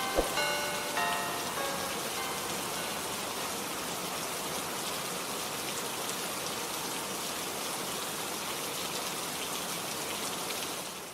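A few bell-like chime notes die away in the first second and a half. Then comes a steady, even hiss like falling rain that eases slightly near the end.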